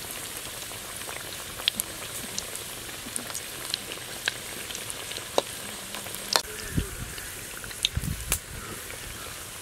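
Banana blossom vadai deep-frying in hot oil: a steady sizzle with many sharp pops and crackles. Twice in the second half there is a dull thump.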